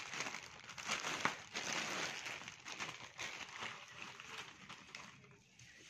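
Plastic courier mailer crinkling and rustling as it is pulled open and peeled off a bubble-wrapped box, fading over the last second or so.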